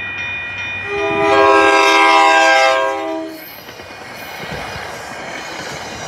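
MBTA commuter train sounding its horn as it reaches the grade crossing, a loud pitched blast between about one and three seconds in. Then the passenger coaches roll past with a steady rush of wheel and rail noise.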